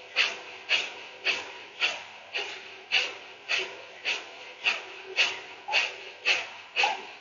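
Kapalabhati yogic breathing: sharp, forceful exhales through the nose, each pushed out by a snap of the abdomen, repeating at a steady rhythm of about two a second.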